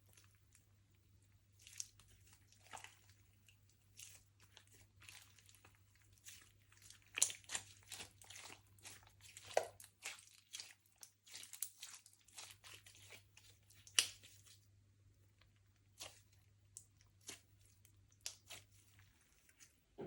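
Slime being squeezed and stretched by hand, giving faint, irregular sticky clicks and pops, busiest in the middle stretch and thinning out toward the end.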